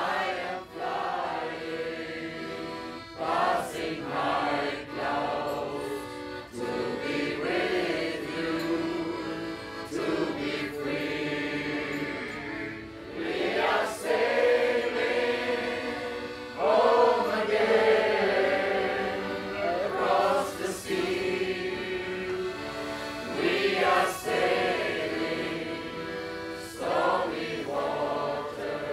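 A choir of men's and women's voices singing a rousing sea shanty together, phrase after phrase.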